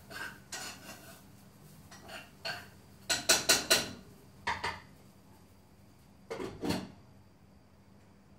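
Cutlery and dishes clinking in a scattered series of short clatters, loudest in a quick run of about four strikes some three seconds in, then two smaller clusters.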